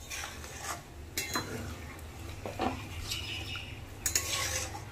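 Metal spatula stirring and scraping milky masala gravy with paneer cubes in a metal kadai, with a few light clinks against the pan.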